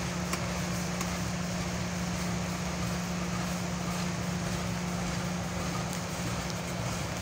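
Steady low hum of a stopped diesel train idling: one unchanging tone under a haze of outdoor noise.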